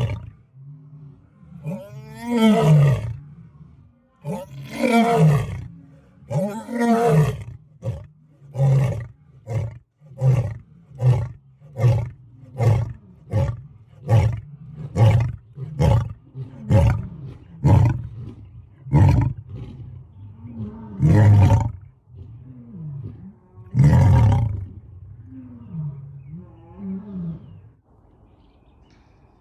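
Lion roaring: several long, deep roars, then a run of short grunting calls at about one a second, two more full roars, and softer grunts trailing off near the end.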